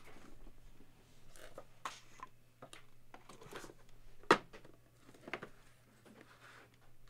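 Cardboard boxes of graded trading-card slabs being slid and handled on a tabletop: soft scraping and rustling with scattered light clicks and a sharp knock about four seconds in.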